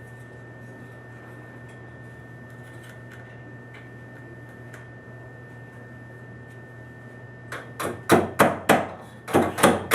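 Hammer blows driving a copper pipe hook's nails into a wooden beam to hold a copper water pipe, a quick run of sharp knocks, about three a second, starting near the end. Before that only a steady low hum.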